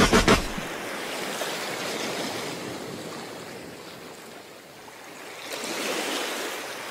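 A rapid burst of automatic gunfire cuts off about half a second in, giving way to a steady wash of ocean surf that swells again near the end.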